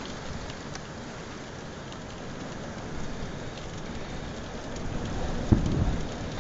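Heavy rain falling steadily on a truck in a thunderstorm. About five seconds in, a crack of thunder breaks in and rumbles on briefly.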